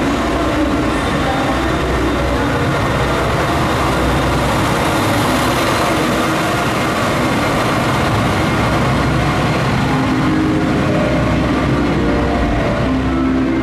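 KiHa 47 diesel railcar running past at low speed, with engine rumble and wheel-on-rail noise, fullest around the middle as the car goes by and then drawing away.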